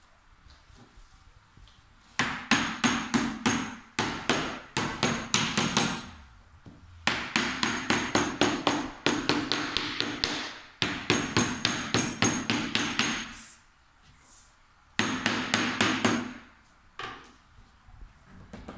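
Small hammer tapping rapidly around the edges of a wooden canvas frame to fit the canvas into it, in four runs of quick strokes with short pauses between them.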